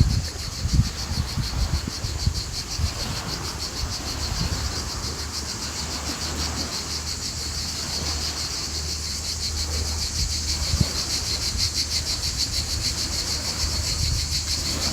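A steady, high, rapidly pulsing insect chorus over a low, uneven rumble of sea and wind.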